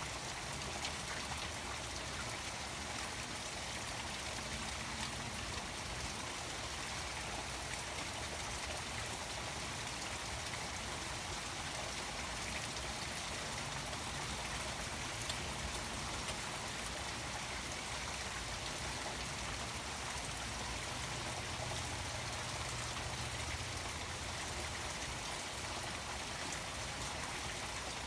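Rain falling on a koi pond, scattered drops pattering on the water, with the pond's waterfall running steadily.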